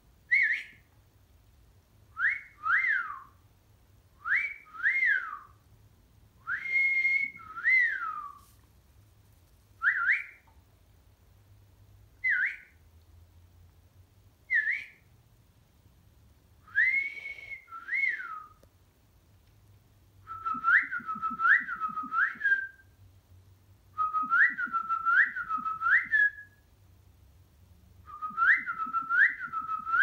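Whistling: a string of clean whistled notes, short rising and falling glides, single or in pairs with pauses between. About two-thirds of the way through it changes to quicker runs of three notes, each run repeated.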